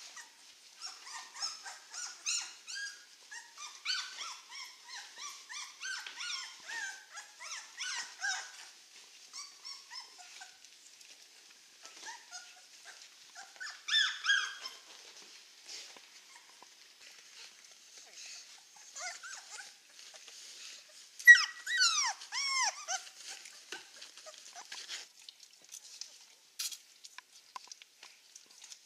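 Czechoslovakian wolfdog puppies, about three weeks old, whimpering and squeaking: many short high squeaks through the first nine seconds, a louder group about fourteen seconds in, and a loud cluster of falling yelps about twenty-one seconds in.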